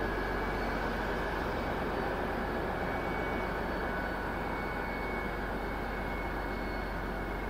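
DB Class 218 diesel-hydraulic locomotive running steadily, a constant engine drone with a faint high whine over it.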